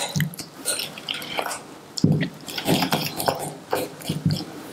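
Fork beating a soft, wet filling of stracchino cheese, grated Grana and egg in a glass bowl: irregular squelching strokes, with the tines clicking and scraping against the glass.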